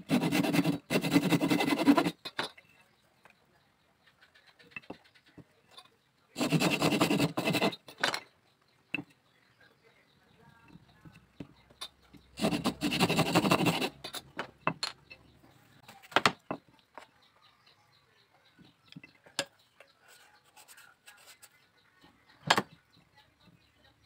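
Small hand saw cutting through a thin bamboo strip in three bouts of sawing, each about two seconds long, a few seconds apart. After them come scattered light clicks and taps from the cut bamboo pieces being handled on the bench.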